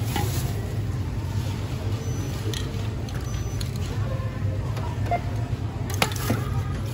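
Steady low hum of store background noise, with faint voices in the distance and a few light clicks and rustles from items handled at a self-checkout.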